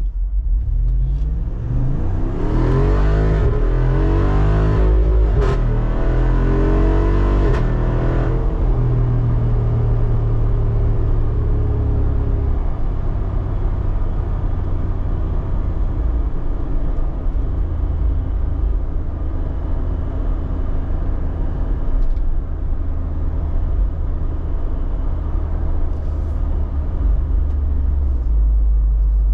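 The Jeep Wrangler Rubicon 392's 6.4-litre HEMI V8 accelerating hard, its pitch climbing and dropping several times through gear changes over about six seconds. It then settles into a steady, lower drone while cruising.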